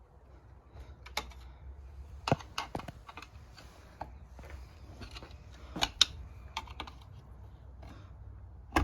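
Irregular sharp clicks and taps of hand tools prying at the joint of a Kawasaki KX85 two-stroke engine's crankcase halves, working the cases apart without a case splitter. The loudest clicks come about two seconds in and again near six seconds.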